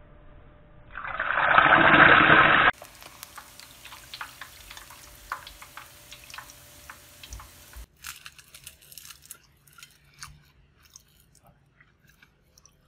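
Fish deep-frying in hot oil: a loud hiss about a second in, then, after a cut, a steady sizzle dotted with rapid crackles and pops. Near the end, faint scattered crunching clicks from biting into the crispy fried fish.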